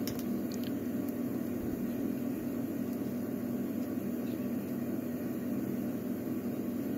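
Steady low background hum at an even level, with two faint clicks in the first second, likely the lock picking tools touching the lock.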